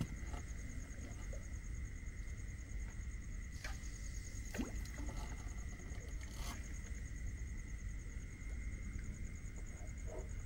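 Night-time ambience by the water: a steady high-pitched chirring with a fine, fast pulse, like night insects, over a low background hum. A few faint clicks and knocks come in the middle.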